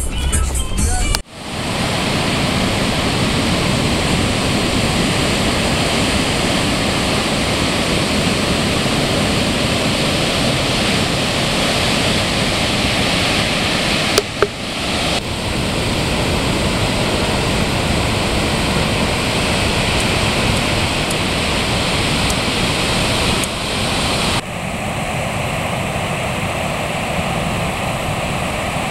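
Large ocean waves breaking and whitewater washing over rocks: a loud, steady rush of surf. It follows a second of a car driving on a gravel road at the start, and the surf sound breaks off briefly twice at edits.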